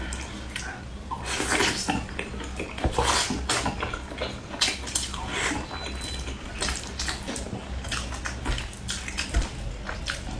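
Close-miked eating sounds: fried chicken being bitten and chewed, with irregular crunching crackles coming in bunches and wet, juicy chewing between them.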